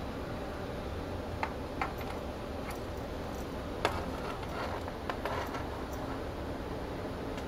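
A handful of short, light clicks, typical of a cat's claws tapping on a hardwood floor as she walks and noses about, over a steady background hiss. The loudest click comes a little past the middle.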